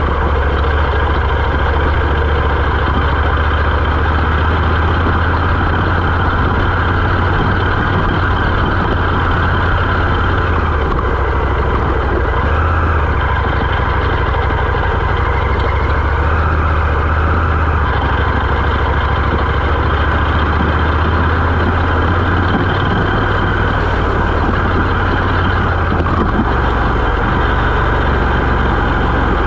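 Moto Morini X-Cape 650's parallel-twin engine running at low, fairly even revs while the motorcycle is ridden along a dirt forest road, with a steady rush of noise over it.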